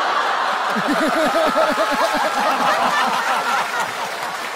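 Studio audience laughing, many voices at once, easing off a little near the end.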